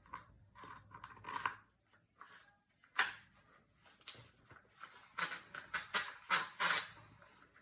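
Toro mower wheel spun by hand on its bolt, its hub rattling and scraping in irregular bursts as it turns. The bolt has been freshly cleaned of gunk with sandpaper, and the wheel turns fairly freely.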